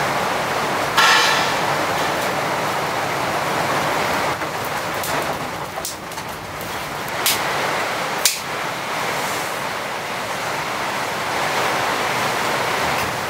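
Heavy rain coming down steadily, heard from inside a hut as an even hiss. A brief squeak about a second in, and a few sharp cracks or snaps later on as sticks are handled at a small fire.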